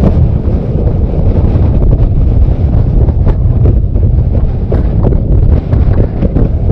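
Strong wind buffeting the microphone in a loud, steady low rumble on an open boat over choppy water, with a few faint short knocks.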